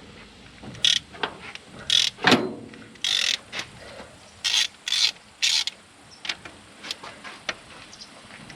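Ratchet wrench clicking in short, raspy runs as the 19 mm cylinder-head nuts of a Moskvich-412 engine are loosened, with lighter scattered clicks near the end.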